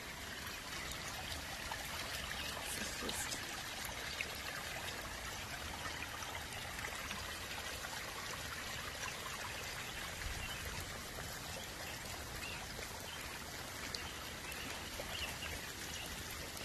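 Floodwater running and trickling over a waterlogged yard, a steady flow of water.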